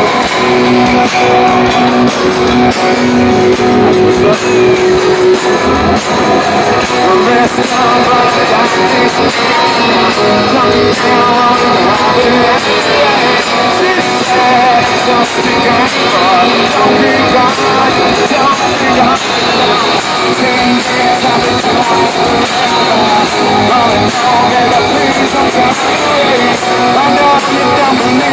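Rock band playing live and loud: distorted electric guitars, drums and a singer, heard from the audience with the hall's echo.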